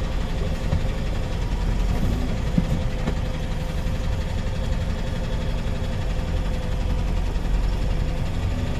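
Diesel truck engine running steadily at low speed, a continuous low rumble with a faint steady hum over it.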